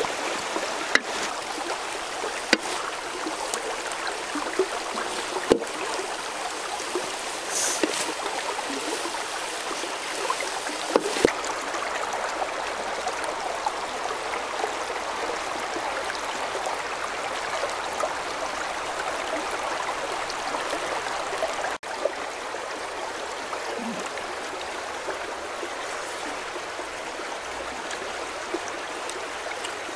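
Shallow river running over rocks, a steady rushing and babbling of water. A few sharp clicks stand out in the first half.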